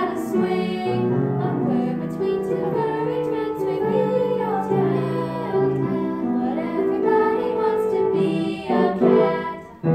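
A small group of young girls singing together in unison, with piano accompaniment, finishing the song in the last second or so.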